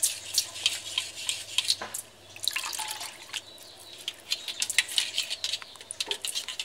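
Water sloshing and dripping as red ant eggs are swished in an aluminium sieve dipped in a basin of water, in many small irregular splashes.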